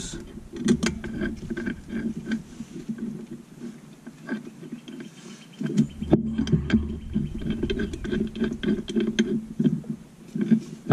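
Metal clinks and knocks of a brake caliper being handled and fitted back over a disc rotor, over a steady low rumble.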